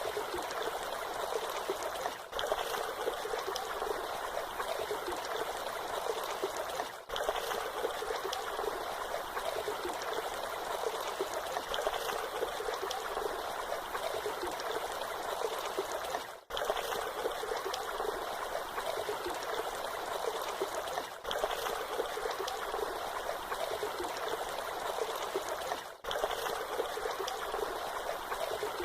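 Waterfall: water falling and splashing in a steady, even rush, with brief dips in level about every five seconds.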